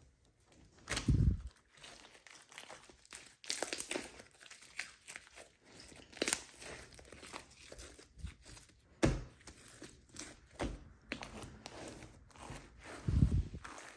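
Slime and its add-ins being handled and mixed, with irregular crinkling, crackling and sharp clicks. There are low thuds about a second in and again near the end.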